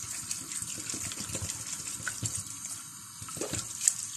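Water poured from a plastic bottle into a stainless-steel pot full of fir buds, splashing and trickling steadily.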